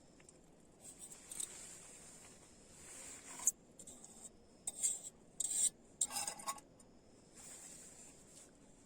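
A utensil scraping and clinking against a cooking pot as freshly cooked spaghetti is handled: a series of irregular short scrapes with a few sharp clinks, the first about three and a half seconds in.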